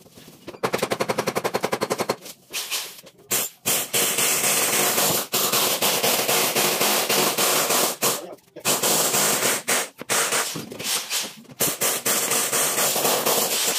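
Kitchen knife rasping along the skin of a chayote as it is peeled close to the microphone: a rapid chattering scrape of about a dozen clicks a second, in stretches of a few seconds with short pauses between strokes.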